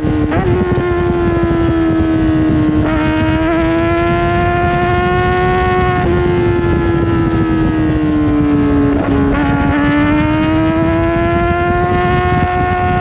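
Kawasaki Ninja ZX-4RR's 399 cc inline-four engine running hard at high revs, its pitch climbing and sagging as the bike is ridden through corners. There are quick gear-change steps in pitch about every three seconds, over steady wind and road noise.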